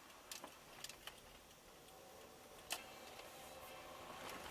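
Faint, quiet noise inside a moving car, picked up by a dashboard camera, with a few sharp ticks in the first second and a louder single click near three seconds in.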